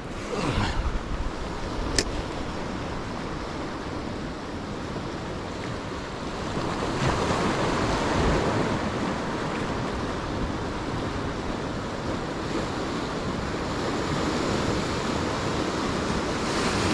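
Sea surf washing over coastal rocks with wind on the microphone, a steady rushing that swells a little about seven seconds in. A single sharp click comes about two seconds in.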